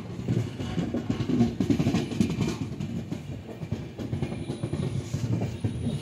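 Passenger train running at speed, heard from inside the coach by an open window: a steady low rumble with irregular rattling.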